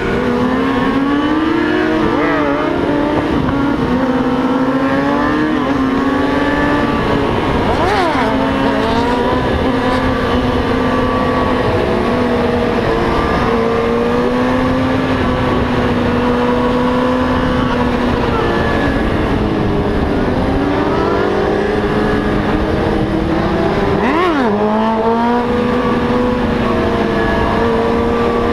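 Motorcycle engine held at fairly steady revs, its pitch wavering slowly up and down, with two quick sharp pitch sweeps, one about a third of the way in and one near the end.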